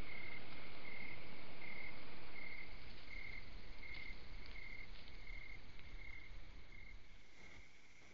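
A cricket chirping at an even pace, about three short chirps every two seconds, over the steady hiss of a trail camera's microphone, with a few faint clicks in the second half.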